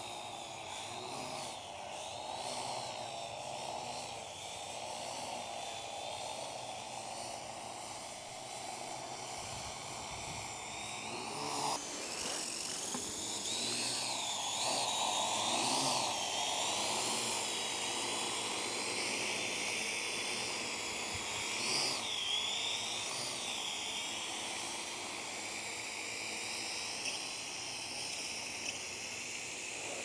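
Parrot AR Drone quadcopter in flight: the high whine of its four electric motors and propellers, wavering up and down in pitch as it holds and shifts position. It gets somewhat louder about halfway through.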